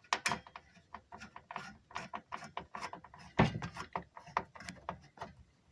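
A CPU cooler being fitted onto a desktop motherboard: a run of irregular small clicks and rattles, with one louder knock about three and a half seconds in.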